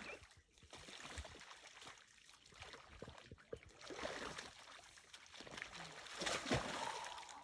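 Lions wading and stepping through shallow muddy water: faint, irregular splashing and sloshing, loudest about six seconds in.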